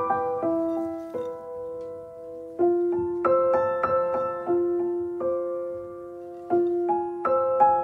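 Background piano music: single notes and chords struck in slow phrases and left to ring and fade.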